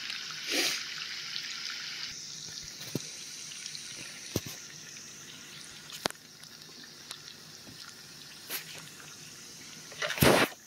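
Dried beef frying in melted butter in a cast iron skillet: a steady sizzle with scattered pops. A louder clatter comes near the end.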